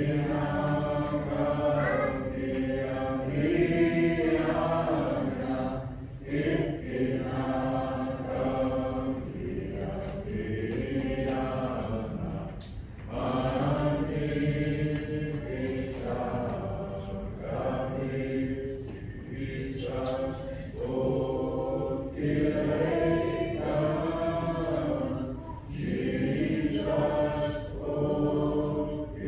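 A group of voices singing a slow hymn in long, held phrases, with brief breaks between lines.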